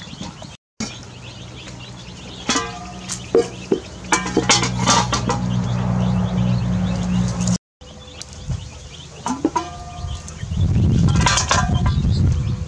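Aluminium cooking pot and lid clanking and ringing as they are handled and set down, several metal knocks a few seconds in. A low rumble near the end.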